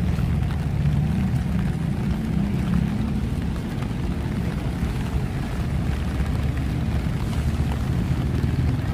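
Rain falling over a steady low rumble of city road traffic.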